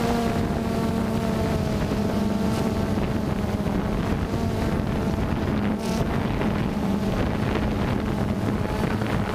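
DJI Phantom 2 quadcopter's motors and propellers humming at a steady pitch under a rush of wind, as it descends to hover just above the ground.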